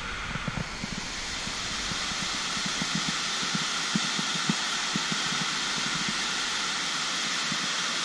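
Tall multi-tiered waterfall cascading over rock: a steady hiss of falling water, with irregular low thumps scattered through it.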